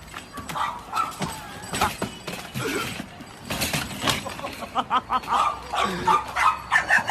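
A dog barking and yipping in a run of short calls, which come thicker in the second half, with some sharp clicks and knocks among them.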